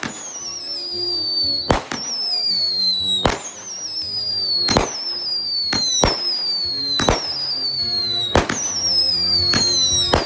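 Consumer aerial firework cake firing shot after shot, about eight in all: each a sharp bang followed by a high whistle that falls slowly in pitch.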